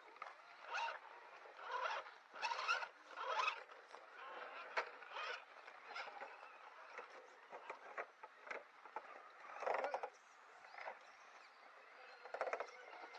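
Radio-controlled rock crawler scrabbling over rock: irregular bursts of tyres and chassis scraping, with sharp clicks and knocks.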